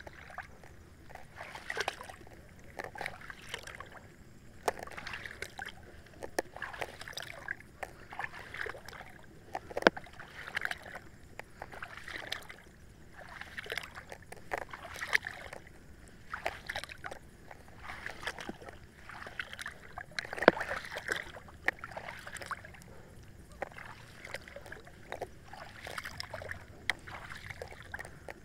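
River water splashing and sloshing as a person moves through it, with many irregular small splashes and sharp clicks.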